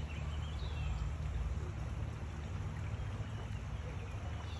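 Shallow creek water flowing steadily over rocks.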